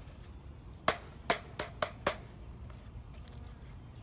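Five sharp knocks in quick succession, about a second in, from wooden beehive parts being tapped or set in place while the hive is closed up.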